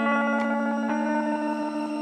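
Background music: held, ringing chords with no beat, changing near the start and again about a second in.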